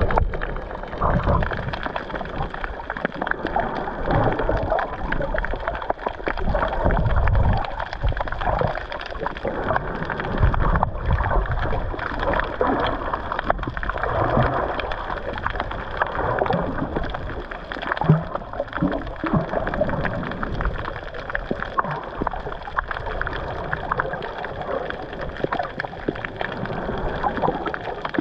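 Water sloshing and gurgling around a GoPro in its waterproof housing while snorkelling, heard muffled, with irregular low thumps.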